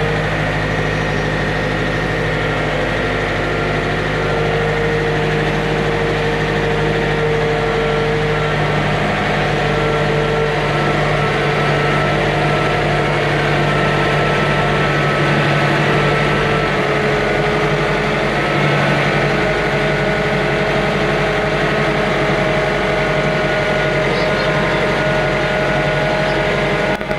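John Deere 110 backhoe loader's diesel engine running steadily, its pitch holding nearly level with small shifts.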